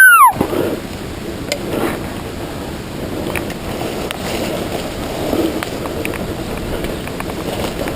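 A loud elk bugle whistle gliding steeply down in pitch, ending about a third of a second in. Wind on the microphone and a steady rustle follow.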